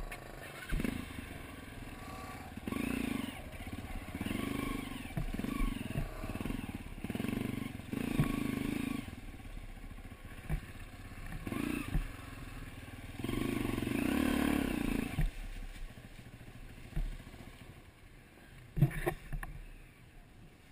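Dirt bike engine revving in short bursts that rise and fall as the bike picks its way over rocks and roots, with knocks and clatter as the wheels and chassis hit the ground.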